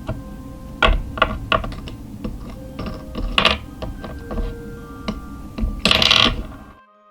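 A series of light, irregular clicks and taps, with a louder rustling burst near the end, over faint held music tones; the background hiss cuts off abruptly just before the end.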